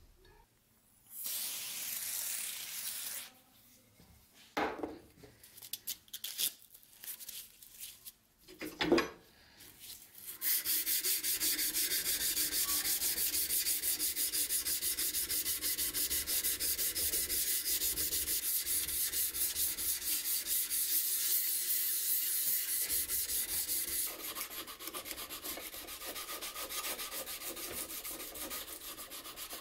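Rusty steel knife blade being sanded by hand: fast back-and-forth rubbing strokes start about a third of the way in and run steadily, then turn quieter near the end. Before that come a short hiss and a few scattered knocks.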